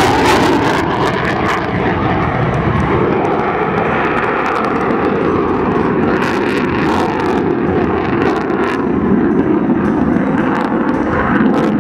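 F-16 fighter jet's single turbofan engine, a loud, steady jet noise as the aircraft flies an aerobatic display overhead.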